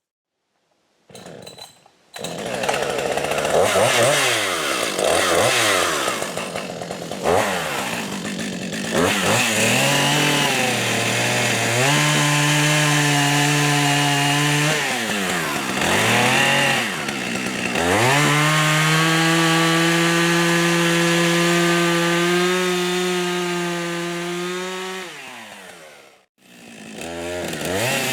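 Husqvarna 555 two-stroke chainsaw cutting: after a short quiet, the engine is revved up and down several times, then held at steady high revs through long cuts, with the pitch falling between them. Near the end it drops out abruptly and then comes back.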